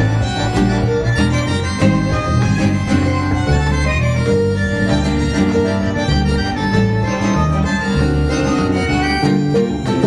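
Acoustic quartet playing an instrumental tune live: acoustic guitar and a held melody line over a pulsing low accompaniment.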